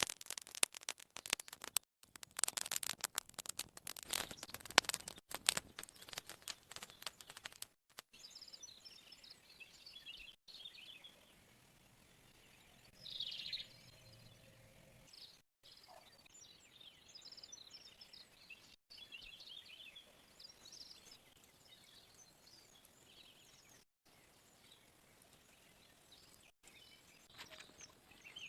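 A dense flurry of sharp taps and clicks for about the first eight seconds, then faint, scattered bird chirps.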